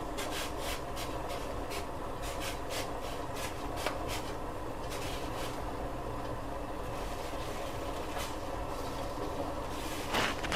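Banana-leaf packets of sticky rice rustling and splashing softly as they are dropped one by one into a pot of nearly boiling water, over a steady low hum. A slightly louder knock comes near the end.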